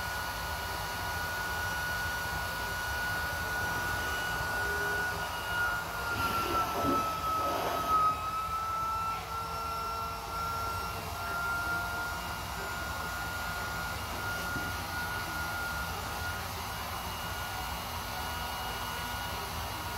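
Small portable electric air pump running steadily as it inflates an inflatable kayak chamber, a steady whine over a blowing hiss. About six to eight seconds in, the whine dips a little in pitch amid some rustling and knocks, then settles back.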